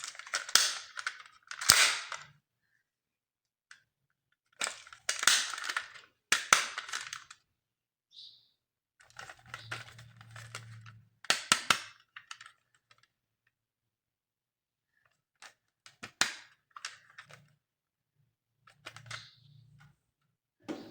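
Plastic toy being handled, giving about five bursts of sharp clicking and crackling, each around a second long, with a short low hum about halfway through.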